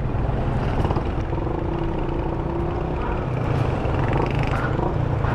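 Suzuki Gixxer single-cylinder motorcycle engine running steadily through an aftermarket SC Project exhaust with its silencer insert fitted, giving a deep, bassy exhaust note.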